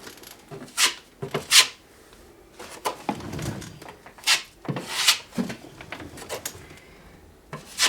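Putty knife scraping and spreading lightweight spackle: a series of short scraping strokes with brief pauses between them.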